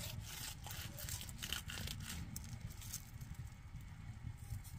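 Serrated knife sawing through a roast chicken's crisp skin and flesh, giving faint crackling and tearing sounds, densest in the first two seconds.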